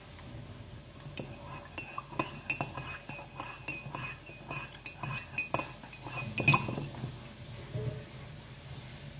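A metal utensil clinking against a ceramic mug in quick, irregular taps, with a faint ring. The loudest clink comes about six and a half seconds in.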